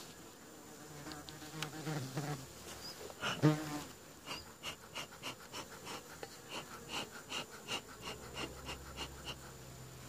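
Honeybees buzzing around an open hive, with a few louder passes close by near the start. About four seconds in, a bee smoker's bellows are pumped in an even run of short puffs, about three a second, for some five seconds.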